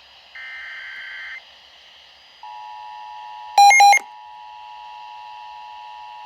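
Emergency Alert System tornado warning: a last short burst of the alert's digital header data, then about a second's pause, then the steady attention tone. Two short, loud electronic beeps sound over the tone near the middle.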